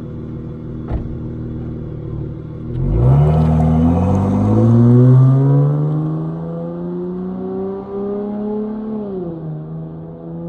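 Dodge Charger GT's 3.6-litre V6 through Flowmaster 40 Series mufflers on dual exhaust, idling, then accelerating hard away about three seconds in, its pitch climbing steadily. Near the end the pitch drops at a gear change, and the exhaust note carries on at a steady pitch.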